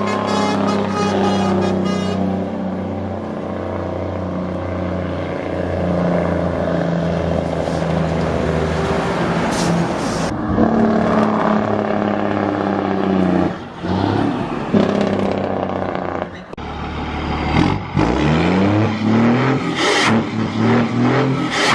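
A motor vehicle engine running hard, with its pitch dropping out briefly twice, about two-thirds of the way through. The pitch then climbs as the engine accelerates near the end.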